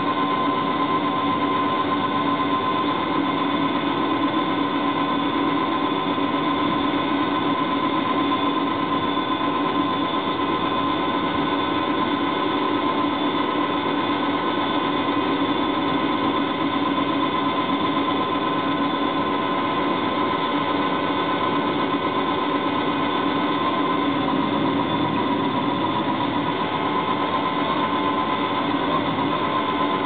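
Onboard drive of a model tug with Voith Schneider propellers: its small motor and gearing running steadily, a constant whine over a lower hum. The whine wavers slightly near the end.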